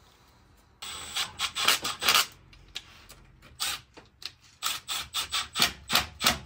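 A rubber coolant hose being worked and twisted onto a radiator neck, rubbing and scraping in quick, irregular strokes that start about a second in.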